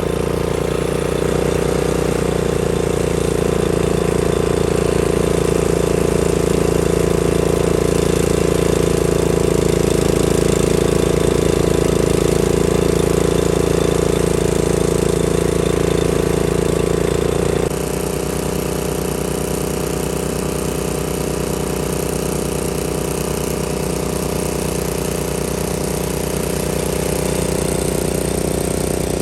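Gasoline engine running steadily under work; about 18 seconds in its sound changes abruptly and it runs on a little quieter.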